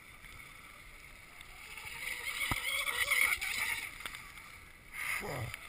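Radio-controlled model boat heard from on board: a motor whine over water rushing past the hull, growing louder through the middle. Near the end the sound sweeps sharply down in pitch.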